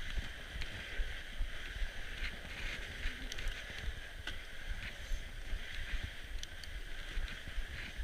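Norco Bigfoot fat bike rolling over a packed-snow trail: a steady hiss of the tyres on snow with a low rumble from bumps, and scattered sharp clicks and rattles from the bike.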